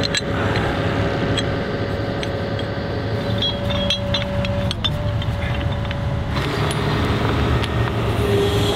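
Excavator's diesel engine running steadily nearby, with short metallic clinks of steel chain and shackles being hooked onto the bucket's lifting hook.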